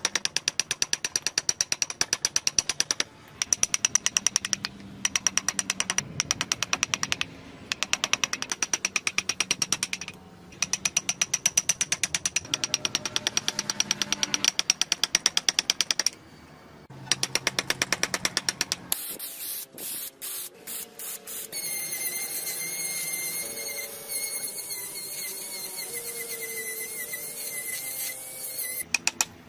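Rapid, even tapping, several strikes a second with short pauses, as a hand carving gouge is driven through the wood. About two-thirds of the way through it gives way to the steady whine of a small rotary tool grinding the wood with an abrasive burr.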